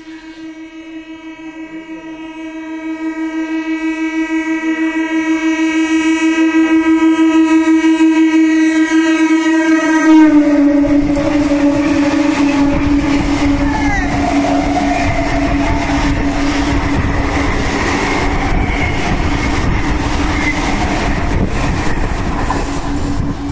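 Indian Railways EMU suburban train sounding one long, unbroken horn as it approaches at speed and runs through the platform. The horn grows louder for about ten seconds and drops in pitch as the front passes. A loud rush and rumble of the coaches with wheel clatter over rail joints follows while the horn keeps sounding.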